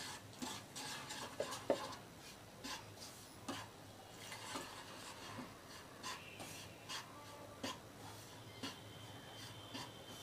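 Wooden spatula scraping and stirring a dry, crumbly roasted milk-powder mixture across a nonstick pan, in repeated short strokes about two a second, faint.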